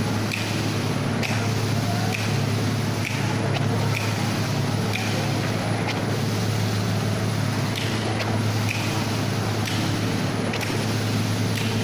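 Small petrol engines on concrete-floor equipment running at a steady speed, with a strong low hum and faint ticks repeating about once a second.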